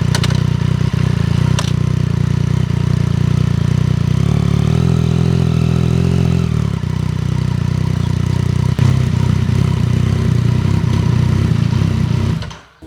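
Yamaha FZ-09's inline-three engine idling through a Black Widow full aftermarket exhaust, with a slight rise in revs about five seconds in; the sound cuts off suddenly near the end.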